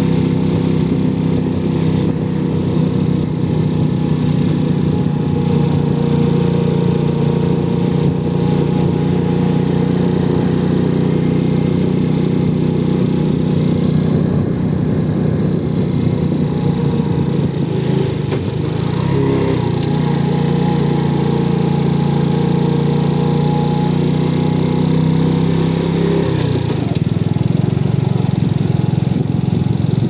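An engine running steadily at a constant speed. Its pitch shifts a little about two-thirds of the way in and again near the end.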